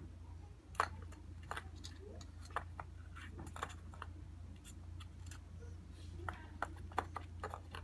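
Irregular sharp clicks and taps from kittens scuffling and playing on a wooden floor, over a steady low hum.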